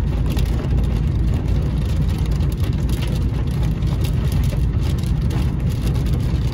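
Steady road and engine rumble inside a moving car driving through heavy rain, with a hiss of rain and spray on the body and glass.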